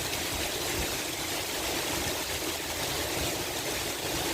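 Heavy rain falling steadily, an even rushing hiss of water.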